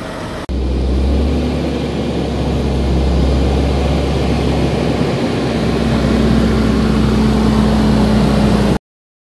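Fendt 936 tractor's six-cylinder diesel engine running under way, a steady deep rumble with a humming tone that rises slightly about two-thirds of the way through. It gets suddenly louder about half a second in and cuts off abruptly near the end.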